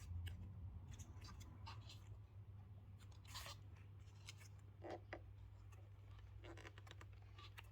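Near silence: faint scattered clicks and scrapes of small parts being handled, over a low steady hum.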